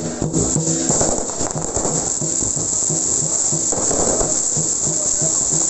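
Aerial fireworks crackling and hissing in a dense, continuous crackle as many stars and comets burn overhead. Music with a steady pitch is heard under it in the first second.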